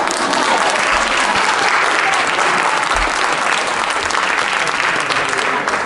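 Audience applauding, many hands clapping in dense, steady applause.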